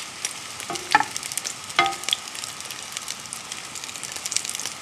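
Mushroom and prawn pancake batter sizzling steadily in a hot non-stick frying pan, with fine crackling throughout and two brief louder clicks about one and two seconds in.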